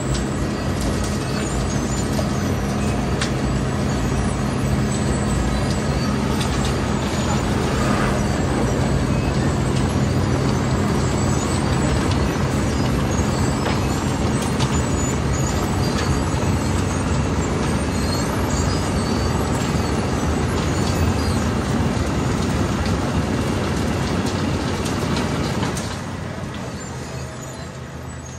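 Wirtgen W100CFi cold planer milling off the road surface: a steady diesel engine note under the grinding of the cutting drum, with planings clattering off the conveyor into a tipper truck's body in scattered sharp clicks. The level drops about two seconds before the end.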